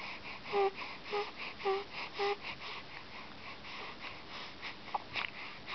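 Young infant cooing: four short, pitched coos about half a second apart, then quiet.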